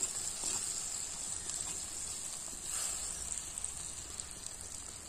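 Curry gravy boiling in a clay pot, a steady hiss, as pieces of cut kuche (freshwater mud eel) are tipped into it.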